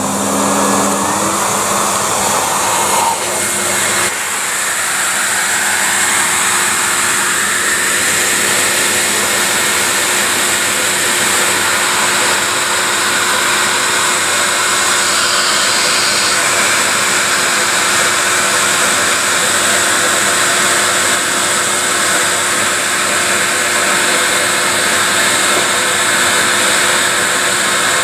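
Numatic Henry canister vacuum cleaner's motor finishing its wind-up to full speed in the first second or so, then running steadily with the rushing hiss of its suction.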